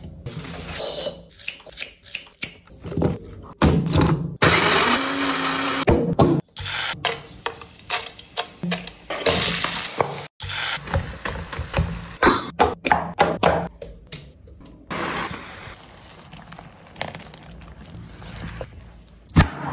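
Close-miked cooking sounds in quick cuts: a chef's knife cutting into raw chicken drumsticks on a wooden board, knocks and taps of utensils and a jar, and a spoon stirring thick green gravy in a pan. About four seconds in, a loud steady rushing noise runs for roughly two seconds.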